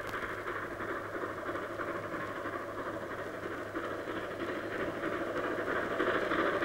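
Steam locomotive running towards the listener, a steady hiss and rumble of steam and wheels that grows louder near the end as it approaches.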